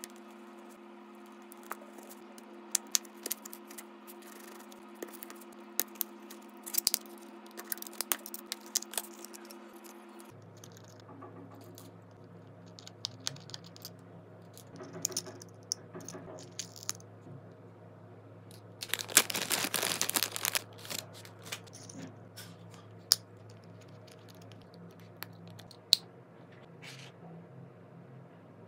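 Small clicks, taps and scraping of metal tools on the plastic AirPods Pro charging case as it is pried open and its insides worked on, with a louder stretch of scraping about two-thirds of the way through. A steady low hum runs underneath.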